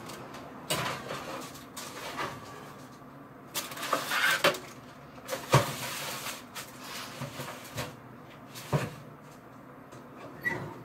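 Kitchen clatter: a string of short knocks and clunks as metal baking trays are handled, the loudest about five and a half seconds in.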